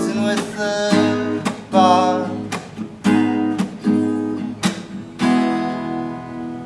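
Acoustic guitar strummed in chords, the closing bars of a solo song with no singing. The last chord, a little after five seconds in, is left ringing as the song ends.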